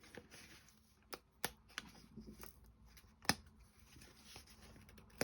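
Small sharp wooden clicks, four or so, the loudest about three seconds in, with faint handling rustle: a delicate wooden clock-kit part being pressed out of its cut sheet.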